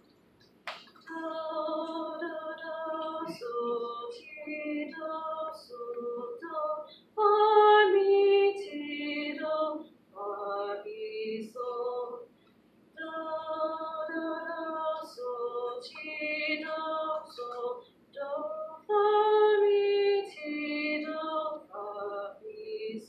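A single female voice singing a slow hymn tune in two long phrases, with a short break about halfway through and the loudest held note in the middle of each phrase.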